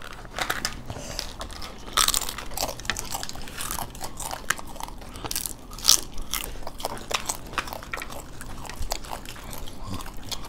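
Several people biting into and chewing raj kachori, the crisp fried shells crunching and crackling in short, irregular bursts, with the sharpest cracks about two and six seconds in.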